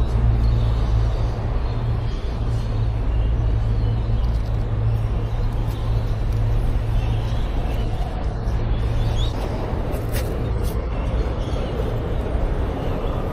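City street traffic: a steady low rumble of passing and idling vehicles under a haze of street noise.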